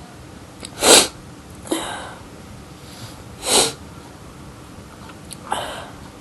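A person's sneezing fit: sniffs and small sneezes in four short, noisy bursts, the loudest about a second in and just past the middle.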